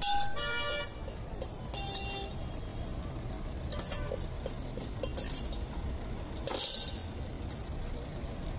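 Steady rumble of road traffic with a vehicle horn honking briefly right at the start and more faintly about two seconds in. A few sharp clinks of a steel spoon against a steel mixing tin come in the second half.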